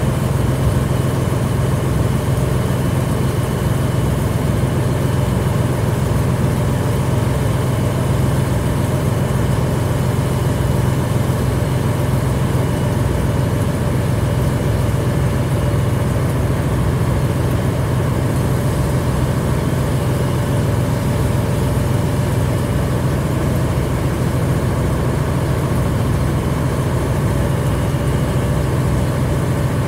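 Fire engine's engine running steadily at the fire ground, a loud, even low drone that holds constant.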